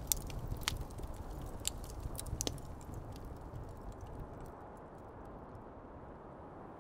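Wood fire crackling in a fire pit: sharp pops and snaps come thick in the first few seconds and thin out toward the end, over a steady low rush.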